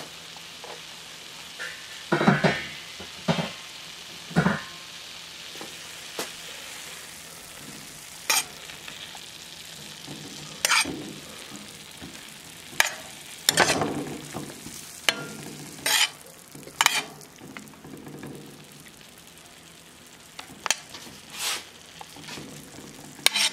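Vegetables sizzling as they sauté in a stainless steel frying pan, with a steady hiss. A metal spoon scrapes and clinks against the pan now and then as the stir fry is stirred.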